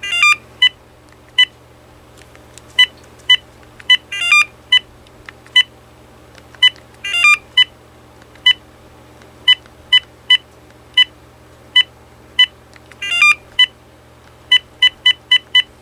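Vtech CS6124 cordless handset's key-press beeps as its settings menu is scrolled, about thirty short, sharp beeps at uneven intervals. Four longer warbling tones sound among them, near the start and at about 4, 7 and 13 seconds in.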